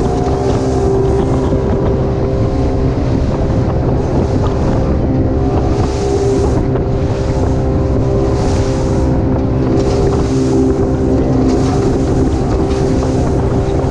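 A center-console motorboat under way at speed: the engine drones steadily under wind rumbling on the microphone, while a hiss of spray and water off the hull swells about every two seconds as the boat runs through the swells.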